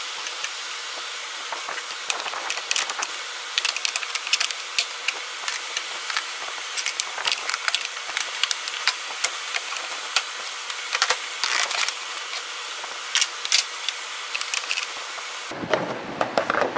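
Steady hiss with many irregular sharp clicks and scrapes of hard plastic as a screwdriver pries a snap-on stock plastic air intake tube off its clip.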